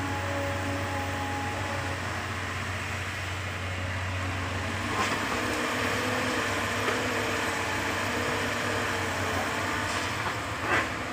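Komatsu hydraulic excavator running steadily under load, a low engine hum with a whining tone that changes pitch about halfway through as the boom lifts and swings. Two short knocks sound, one about five seconds in and one near the end.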